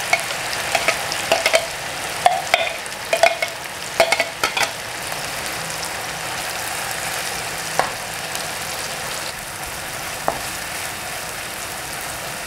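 Wet blended green chilli, shallot and garlic paste sizzling in hot oil in a non-stick frying pan, a steady hiss as the sambal ijo base starts to fry. A spoon clicks and scrapes repeatedly over the first five seconds or so, then only a couple of single taps as it is stirred.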